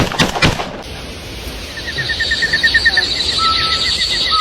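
A few sharp bangs in the first second, then outdoor ambience with fast, rhythmic chirping trills and short repeated whistled notes from calling wildlife.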